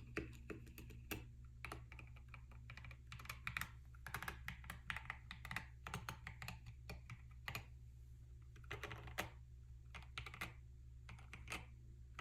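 Typing on an NK65 Entry Edition mechanical keyboard with NK Silk Oblivion linear switches lubricated with Krytox 205g0, and KAT-profile keycaps. The keystrokes come in quick irregular runs with a couple of short pauses, over a steady low hum.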